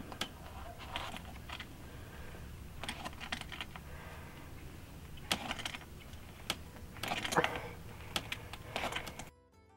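Irregular clicks and scratchy creaks of a hand tool being worked by hand to start a hole in the edge of a dog house panel, busiest about seven seconds in, over a steady low rumble. Plucked acoustic guitar music comes in at the very end.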